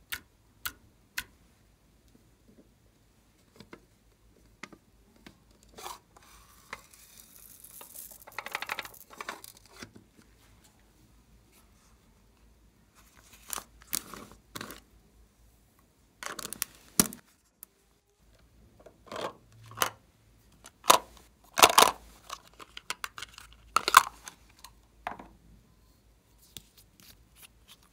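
Hands opening and handling small plastic containers and a lip gloss tube: scattered clicks, taps and pops of plastic lids and caps, with a stretch of rustling about a third of the way in and the loudest clicks in the last third.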